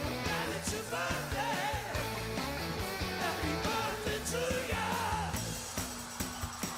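Background music: a song with a singing voice over a backing band. A little after 5 seconds in the voice drops out, leaving the beat.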